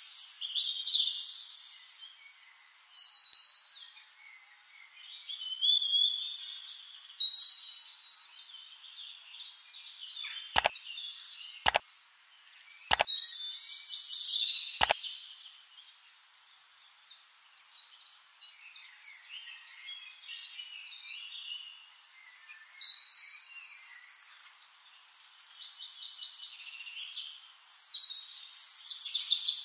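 Birdsong from many small birds chirping and trilling, heard only in the high range with all low sound cut away. A little over a third of the way in come four sharp clicks, a second or so apart.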